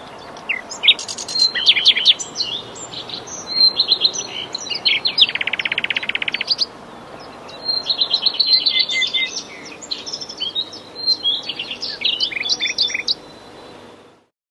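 Several birds chirping and singing over a steady outdoor hiss. The calls are short, high, repeated chirps and trills, with a fast, dense trill about five seconds in. The sound fades and stops shortly before the end.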